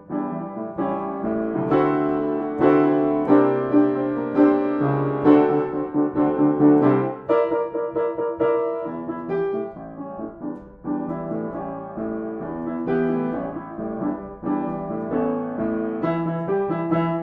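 Background piano music, with notes ringing on and overlapping.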